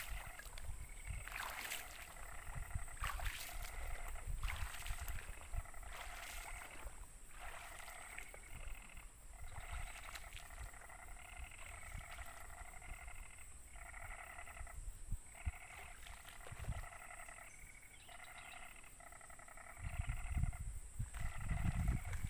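An animal calling over and over in short pulsed phrases, each under a second, over a steady high insect drone. Low rumbling movement noise comes at the start and again about 20 seconds in.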